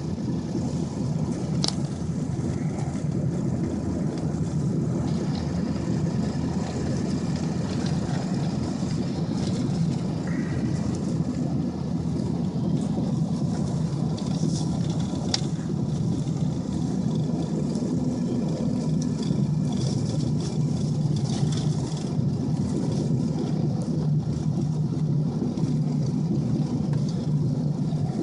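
A 2002 Ford F-250 pickup driving on a snow-covered road: a steady mix of engine and tyre noise, with two brief sharp clicks, one near the start and one about halfway through.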